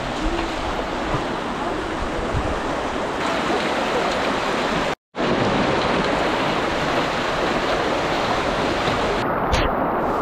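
Muddy floodwater rushing steadily along a narrow village lane, broken by a brief silence about halfway through.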